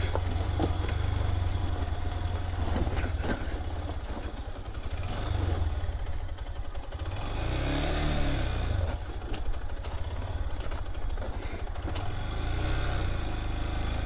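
Motorcycle engine running in low gear on a rough, muddy mountain track. Its pitch rises and falls once about eight seconds in, with a few short knocks along the way.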